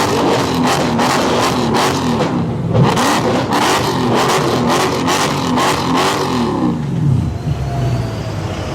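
Mercedes-AMG C63 V8 with an iPE valvetronic exhaust being revved in quick repeated blips, its note rising and falling again and again. About seven seconds in the revs fall away to a lower, steady rumble.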